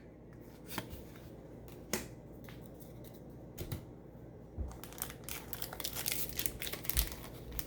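A few scattered light clicks, then from about five seconds in a foil booster pack wrapper crinkling and being torn open.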